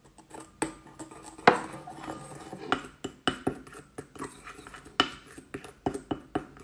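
A metal teaspoon stirring a powdered face mask into hot water in a ceramic bowl, with irregular clinks and scrapes against the bowl; the loudest clink comes about a second and a half in.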